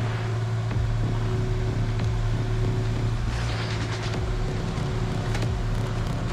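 Diesel engine of a piece of heavy equipment running steadily at constant speed, with a brief rush of noise about three and a half seconds in.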